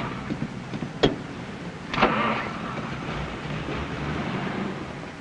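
Car on an old film soundtrack: a sharp click about a second in, a hissing burst at about two seconds, then the engine running steadily.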